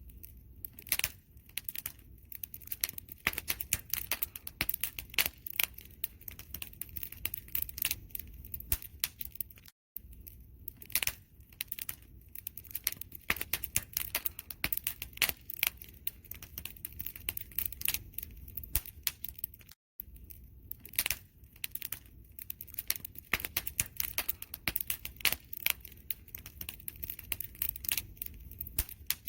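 Wood fire crackling and popping irregularly over a low rumble of flames. The sound cuts out for an instant twice.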